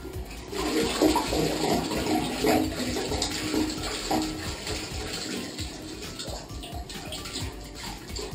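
Rinse water pouring out of a Camco 41545 cassette toilet's waste tank through its spout and splashing into a flush toilet bowl, the second rinse of the tank. It starts about half a second in and gradually gets quieter as the tank empties.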